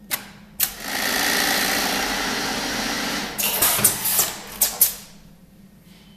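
Brother 980 industrial buttonhole sewing machine running through a cycle: a couple of clicks, then steady fast stitching for about two and a half seconds, then a quick series of sharp mechanical clacks as the cycle ends.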